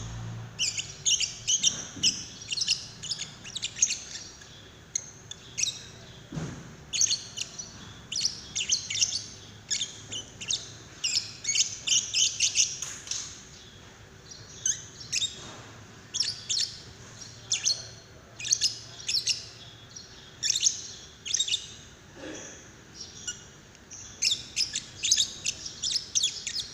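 Lovebird chattering song: long runs of rapid, high, scratchy chirps in clusters with short pauses between them, with a few faint knocks.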